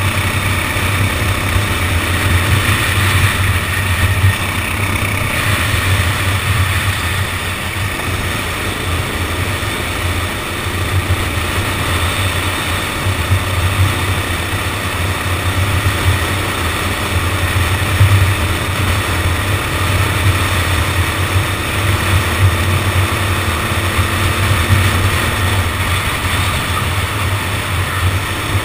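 Go-kart engine running steadily, heard from a camera mounted on the kart.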